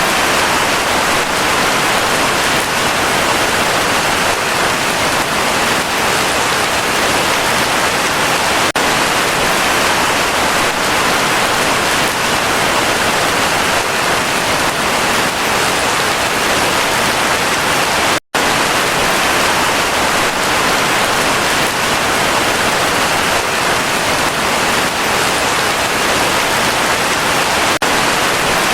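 Heavy rain falling steadily, a dense even hiss. It cuts out completely for a split second about two-thirds of the way through, then resumes unchanged.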